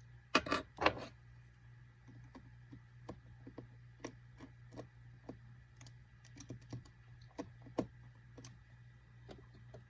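Small clicks and taps of a precision screwdriver and tiny screws being driven into an iPhone 5c's internal brackets. Two louder knocks come about half a second and a second in, then scattered light clicks.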